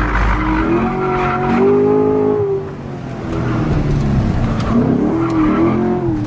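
Car engine revving hard, heard from inside the cabin as the car is thrown around on a drift ride-along. Its pitch rises and falls again and again, dipping briefly about two and a half seconds in.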